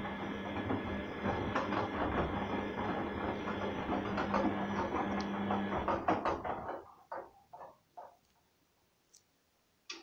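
Arçelik front-loading washing machine drum turning during a wash, with the motor humming and sudsy water and laundry sloshing and clattering inside. About seven seconds in, the drum stops; a few last sloshes follow, then near quiet.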